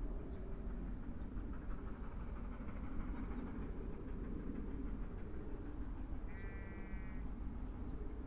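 Outdoor ambience: a steady low rumble, with a few faint high chirps and a single short call of under a second about six seconds in.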